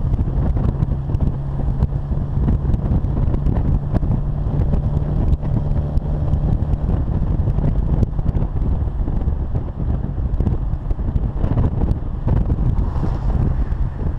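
Austin-Healey Bugeye Sprite's 948 cc four-cylinder engine and exhaust running while the car drives along, with wind buffeting the microphone. The engine holds a steady note for the first half, then its note shifts around midway.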